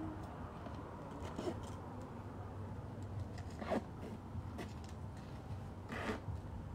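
Three brief rustles, about one and a half, four and six seconds in, over a steady low background hum.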